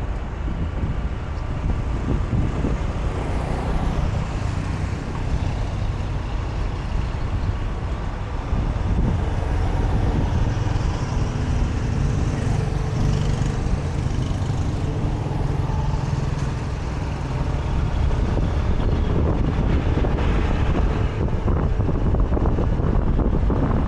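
Steady road traffic noise from moving along a busy city street, with cars and motorbikes running close by and a heavy low rumble. It gets louder about nine seconds in.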